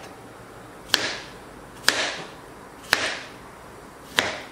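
Chef's knife slicing a cucumber into rounds on a plastic cutting board: four sharp chops, about one a second, as the blade goes through and strikes the board.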